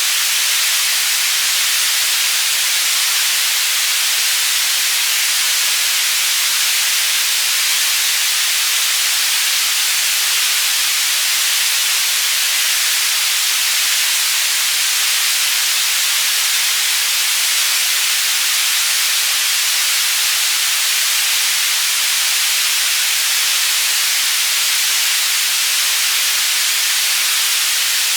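Synthetic white noise for tinnitus masking, panned between left and right. It is a steady, unbroken hiss, strongest in the high range and thin in the low end.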